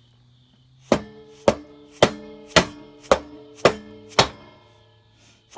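Mallet blows on a motorcycle's rear axle, driving it through the wheel hub and swingarm: seven steady strikes about half a second apart, each leaving the metal axle ringing, then one more blow at the end.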